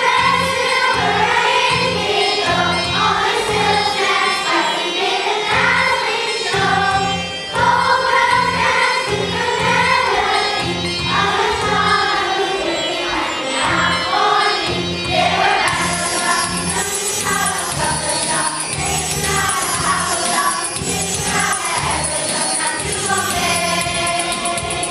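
A children's choir singing a song over an instrumental backing with a steady beat.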